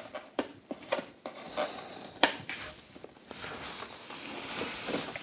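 Protective packaging being handled and pulled off a kitchen appliance: a few sharp clicks and knocks, the loudest a little over two seconds in, then rustling.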